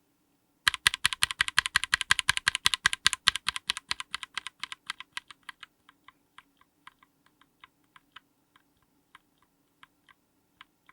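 Mechanical keyboard with stock Akko CS Jelly Black linear switches on an FR4 plate being typed on: a fast, dense run of keystroke clacks starting under a second in, thinning after about the middle to slower, scattered, quieter keystrokes.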